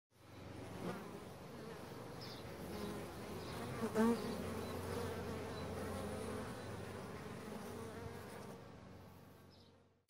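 Bees buzzing as a steady, dense hum, with one louder buzz about four seconds in. It fades in at the start and fades out near the end.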